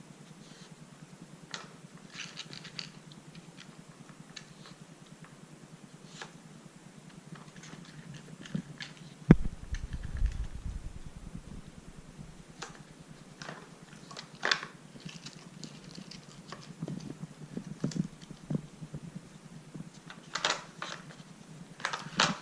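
Dog nosing and pawing a Dog Tornado puzzle: scattered clicks and knocks from its stacked rotating plastic tiers, with one sharp knock about nine seconds in followed by a brief low rumble, over a steady low hum.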